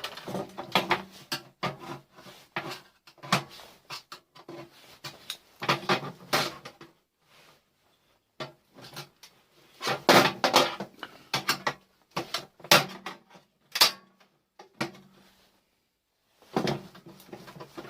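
Irregular clanks, knocks and clatters of a microwave's metal casing and parts being turned over and pulled apart, with short pauses; the loudest knocks come about ten to fourteen seconds in.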